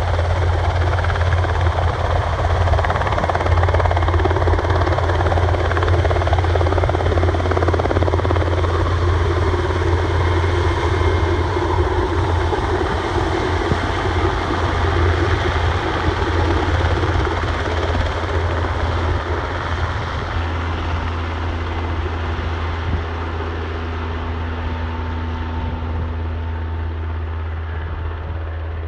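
Eurocopter AS-532U2 Cougar Mk.II twin-engine military transport helicopter's rotor and engines running steadily as it hovers, lifts a sling-loaded vehicle and flies off with it. The sound slowly grows fainter and duller over the second half as the helicopter moves away.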